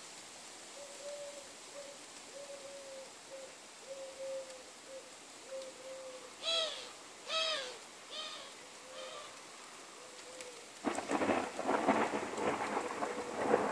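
Thunder breaks suddenly near the end: a loud, crackling peal that keeps rolling. Before it, a bird calls over and over in short, low coos, two of them louder than the rest.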